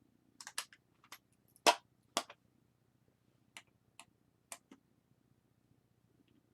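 Irregular small clicks and taps of a camera lens and small precision tools being handled on a work surface, the sharpest about a second and a half in, over a faint low hum.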